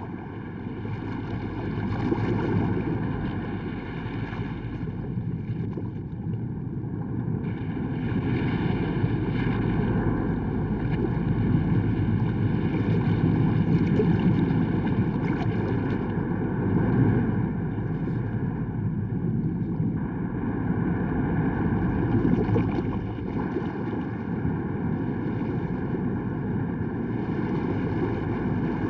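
Sea waves surging against a rocky coast: a loud, unpitched rushing of water that swells and eases every few seconds.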